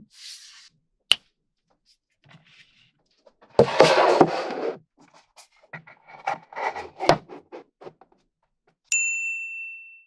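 Small magnetic balls clicking and clattering together: a single sharp click, then a dense burst of clattering, then a run of small clicks and rattles. Near the end comes one clear ringing ding that fades away.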